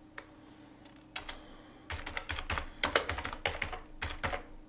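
Typing on a computer keyboard: a few separate key clicks, then from about two seconds in a quick, uneven run of keystrokes.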